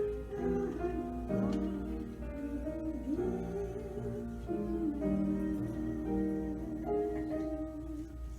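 Slow music: a wavering melody over sustained accompanying notes, which ends near the end.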